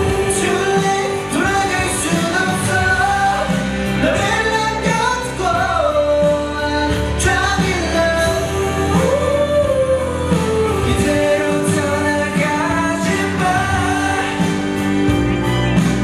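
A male vocalist sings a slow pop song, backed by a band.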